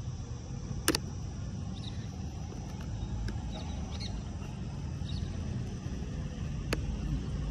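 Two sharp plastic clicks, one about a second in and one near the end, as a plastic action-camera mount is pushed and locked into a helmet chin mount. A steady low outdoor rumble and a few faint bird chirps sound behind.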